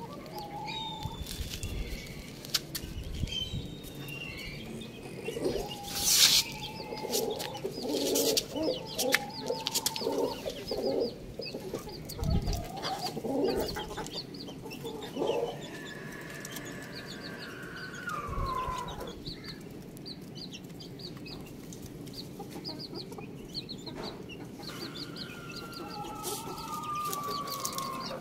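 Chickens clucking in a poultry yard, with thin high peeping, like chicks, running throughout. Several long calls fall in pitch in the second half, and there is a single loud sharp knock about six seconds in.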